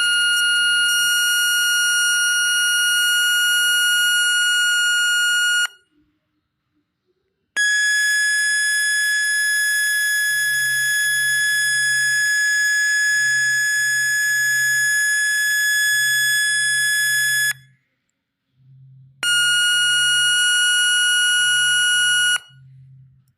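NE555 timer oscillator circuit sounding a steady, buzzy electronic tone while a push button is held. The tone stops about six seconds in. After a short gap a slightly higher tone sounds for about ten seconds, and near the end the lower tone returns for about three seconds. These are the circuit's two slightly different frequencies, selected by its two push buttons.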